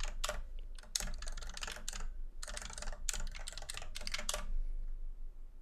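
Typing on a computer keyboard: quick runs of key presses that stop about four and a half seconds in.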